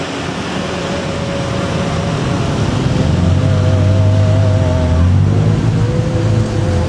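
Boeing 737-500's CFM56-3 turbofan engines running as the airliner rolls along the runway: a wavering whine over a deep rumble, growing louder towards the middle and easing a little near the end.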